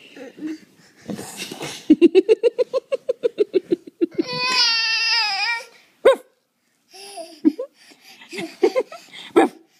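A baby laughing in a quick run of rhythmic bursts, then a long high-pitched squeal that drops in pitch at its end, then more short bursts of giggling.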